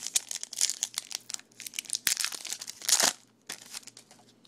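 Trading card pack wrapper crinkling and tearing as a new pack is opened, in a rapid run of crackles that peaks about three seconds in and then dies down.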